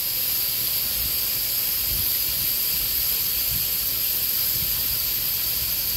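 Steam hissing steadily from the plant of a small US Navy marine steam engine, with a few faint low thumps.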